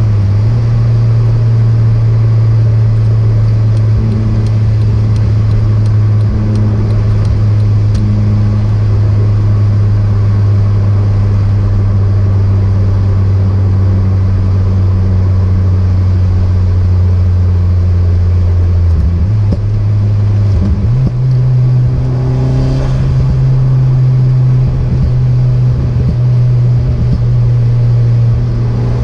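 Turbocharged car's engine and road noise droning steadily while cruising. About twenty seconds in the drone falters briefly, then settles back at a slightly higher pitch.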